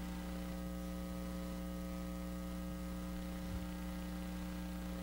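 Steady electrical mains hum: several steady tones stacked together.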